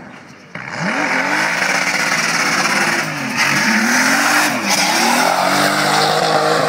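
Drift car sliding sideways with its tyres screeching continuously. Its engine revs rise and fall several times under the throttle, then hold steady near the end. The noise jumps up loud about half a second in.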